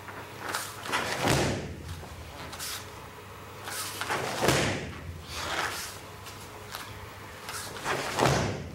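Three kicks landing on a handheld punching mitt, each a short swish followed by a thump, about three and a half seconds apart.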